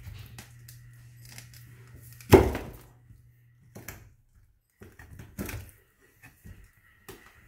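Chinese cleaver cutting through a whole fish on a wooden cutting board: a few separate knocks of the blade against the board, the loudest about two seconds in.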